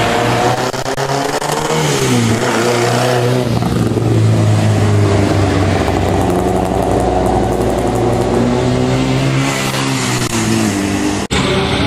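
Rally car engines revving hard as the cars accelerate past at close range, the pitch rising and falling several times. The sound drops out sharply for an instant near the end.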